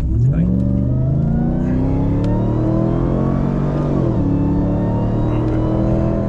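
Ram TRX's supercharged 6.2-litre Hemi V8 accelerating hard. Its revs jump up just after the start and climb steadily, then drop sharply with an upshift about four seconds in, after which it runs steady.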